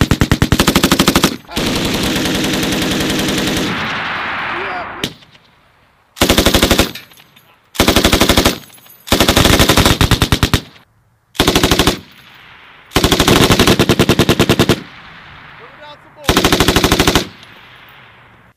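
Belt-fed M249 and M240 machine guns firing a string of bursts of automatic fire: about eight bursts, each lasting under a second to about two seconds, with short pauses between them.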